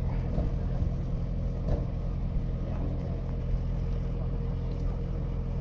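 Tractor engine running steadily, a low even hum with no change in revs.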